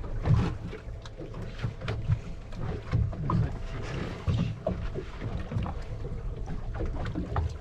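Wind rumbling on the microphone aboard a small fishing boat, with scattered knocks and clatter from handling on deck.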